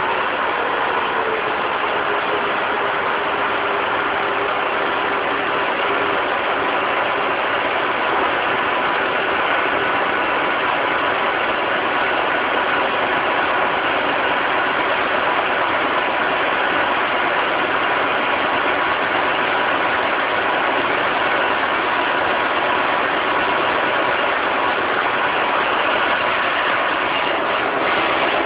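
Claas Jaguar 860 forage harvester's 14.6-litre twin-turbo Mercedes V8 diesel idling steadily just after a cold start.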